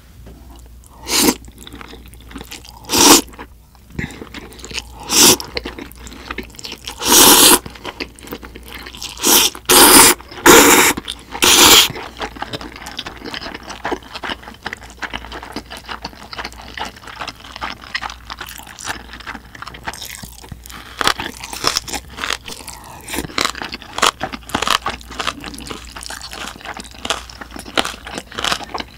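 Spicy buckwheat noodles (bibim makguksu) slurped in about eight loud pulls over the first twelve seconds, then steady chewing with small crunches.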